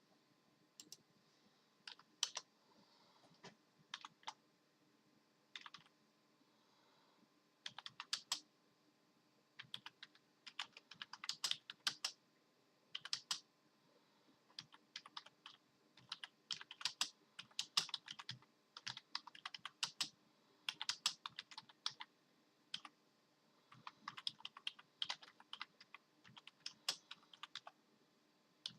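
Computer keyboard keys clicking in irregular bursts of rapid keystrokes, with short pauses between the bursts.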